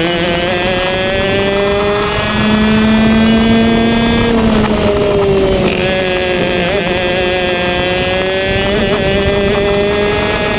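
Racing kart engine running at high revs, heard from on board the kart. Its pitch holds high, dips briefly about halfway through, then climbs steadily again.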